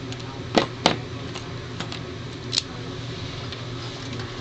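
A few sharp metallic clicks from a lock pick and tension wrench working in a Master padlock: two close together within the first second, then one more about two and a half seconds in, over a steady low hum.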